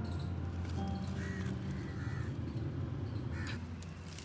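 A few short animal calls, spaced about a second apart, over a steady low hum.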